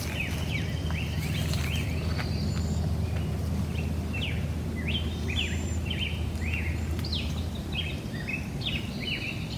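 Birds chirping in many short, quick notes over a steady low hum of background noise.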